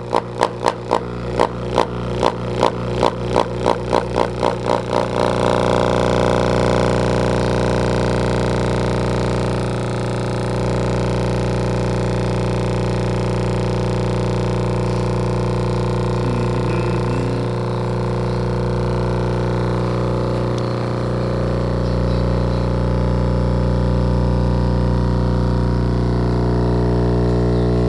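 Two Sundown E8 subwoofers driven straight from a 120-volt wall socket, buzzing loudly with 60 Hz mains hum. For the first five seconds the buzz pulses about three times a second, then it settles into a steady drone.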